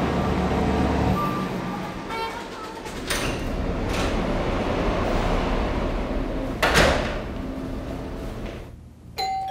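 Street traffic hum fading as a wood-and-glass entrance door is opened with a few latch clicks and then swings shut with a sharp thud about two-thirds of the way in. Right at the end a single bright bell-like ring starts.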